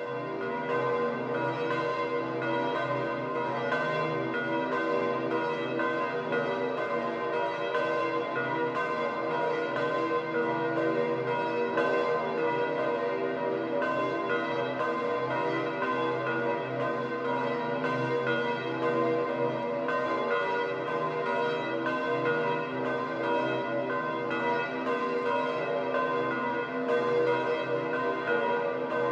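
Several church bells ringing together in a full peal, their strikes overlapping in a continuous, steady clangour.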